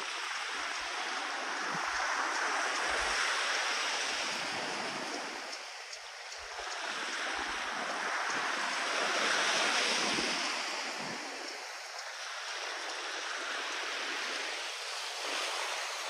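Small surf washing onto a sandy beach, a steady hiss that swells and fades every few seconds, with brief low rumbles of wind on the microphone.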